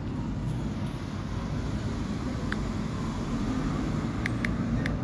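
Steady low background rumble, with a few short faint ticks in the second half.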